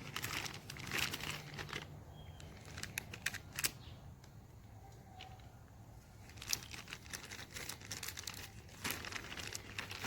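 Packaging being handled during an unboxing: irregular crinkling and rustling with small clicks, busier about a second in and again over the last few seconds.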